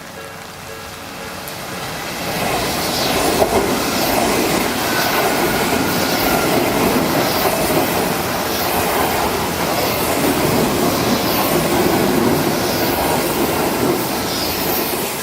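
Odakyu Line electric train passing over a level crossing, its wheels clattering on the rails. The noise builds over the first two seconds, stays loud for about twelve seconds and eases near the end. The crossing's warning alarm keeps ringing faintly underneath.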